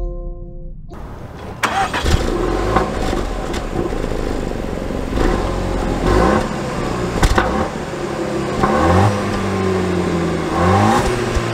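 2021 Land Rover Defender's 2.0-litre four-cylinder engine starts about a second and a half in, then idles with several throttle blips, the revs rising and falling. It is heard at the exhaust from under the vehicle.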